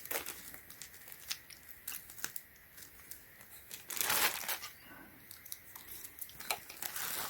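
Packaging crinkling and rustling, with small clicks and knocks as the pump and its cord are handled. A louder, longer rustle comes about four seconds in.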